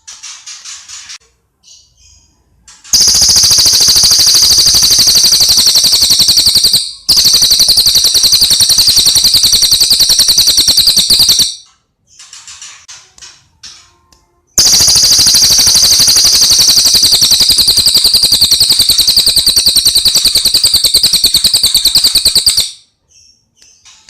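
A cililin songbird singing: two long bouts of loud, very fast high-pitched trilling, each about eight seconds, with softer short chirps before, between and after them.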